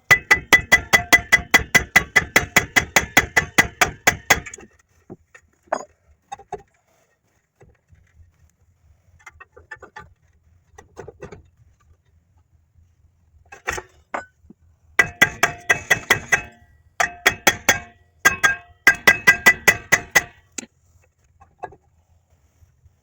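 Rapid ringing metallic clicks, about six a second, in several bursts of a few seconds each: hand-tool work on a drum brake assembly. Scattered faint knocks and taps come between the bursts.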